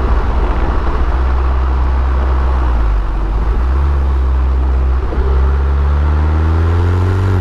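Abarth Punto Evo's turbocharged 1.4-litre four-cylinder engine pulling under load. There is a brief break a few seconds in, then the engine note climbs steadily through the revs before dropping sharply at the very end.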